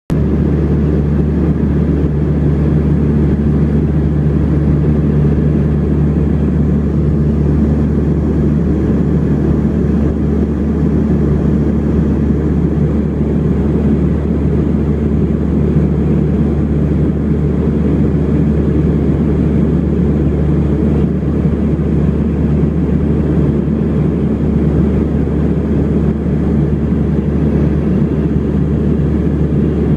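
Steady drone of an Embraer EMB 120 Brasilia's twin turboprop engines and propellers in flight, heard inside the cabin: a loud, even low hum with a few held low tones.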